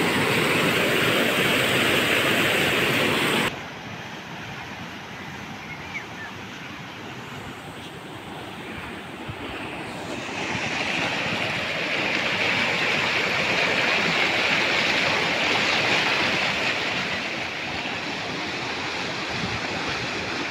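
Muddy floodwater gushing out through the openings of a concrete canal outlet, a loud steady rush that cuts off sharply about three and a half seconds in. After that, a quieter steady rush of flowing water, growing louder again about ten seconds in.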